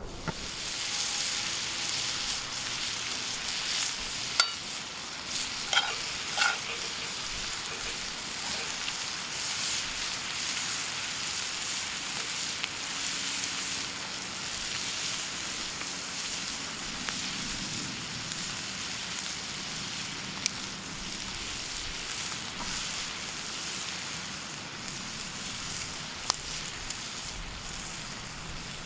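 Food sizzling in a hot skillet, a steady frying hiss that starts right at the beginning, with a few sharp knocks about four to six seconds in.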